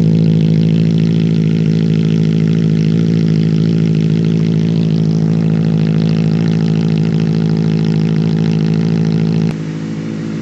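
Benelli 600 inline-four motorcycle engine running loud at a steady engine speed, its pitch held level rather than revving. About nine and a half seconds in the sound drops suddenly to a lower level.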